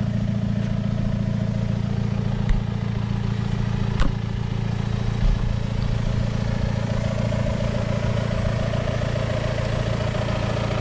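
Tractor diesel engine running steadily while pulling a Rain-Flo 2570 plastic mulch layer, with one sharp click about four seconds in.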